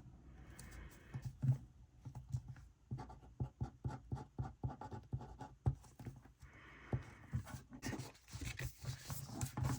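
Pen and paper stickers worked on a planner page: quiet, irregular taps and scratches, thickest in the middle few seconds.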